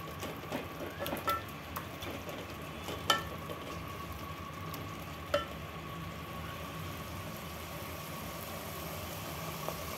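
Thick mutton and tomato gravy sizzling in an aluminium pot as a wooden spatula stirs it, with a few light knocks and scrapes of the spatula against the pot in the first half. The masala is cooking down uncovered until the oil separates.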